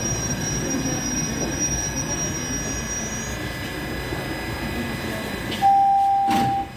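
TTC Toronto Rocket subway train braking to a stop at the platform: a high wheel-and-brake squeal over the rumble of the cars, the squeal ending about halfway through. Near the end a loud steady electronic beep sounds for about a second, the train's door signal as the doors open.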